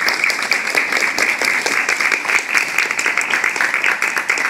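Audience applauding: many hands clapping loudly and densely.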